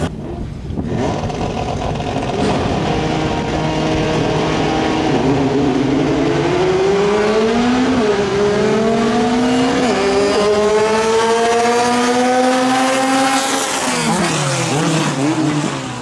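Drag-racing car engine at full throttle, its pitch climbing steadily and dropping sharply twice at the gear changes midway through, then falling away as the throttle is lifted near the end.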